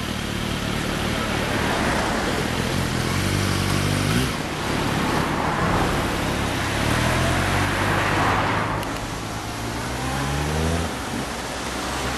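Kawasaki Z750S inline-four with a Nojima racing exhaust pulling away and accelerating. The engine note rises about three seconds in, breaks off at a gear change, then climbs again and drops away near the end.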